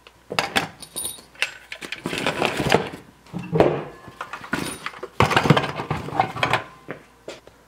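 DeWalt cordless power tools with hard plastic bodies knocking and clattering against each other as they are packed by hand into a soft fabric tool bag, in an irregular run of knocks and rustles.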